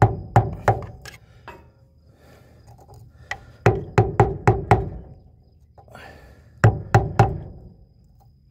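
Small hammer striking a screwdriver used as a chisel behind the lip of a transmission tailshaft seal to drive the seal out: three quick runs of sharp blows, about three a second, with pauses between.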